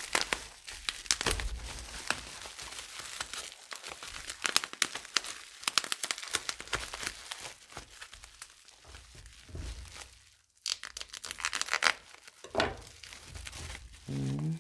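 Plastic bubble wrap crinkling and crackling as it is pulled off a puzzle cube by hand, with a brief pause about ten seconds in.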